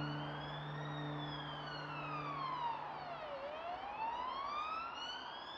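Emergency-vehicle siren on a slow wail. It climbs to its highest pitch about a second in, falls to its lowest about three and a half seconds in, then climbs again.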